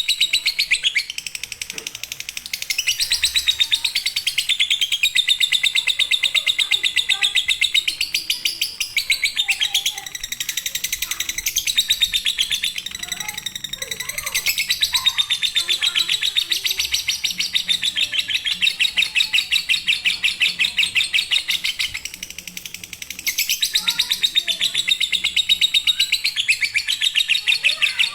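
Lovebird singing a long, very rapid, unbroken chattering trill in the drawn-out 'konslet' style, falling back briefly a few times before picking up again.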